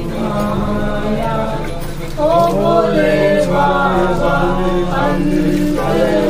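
Voices chanting a devotional chant over a steady drone, louder from about two seconds in.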